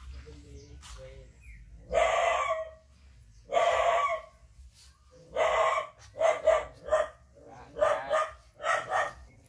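Chicken calling: three loud drawn-out calls about a second and a half apart, then a quick run of shorter calls.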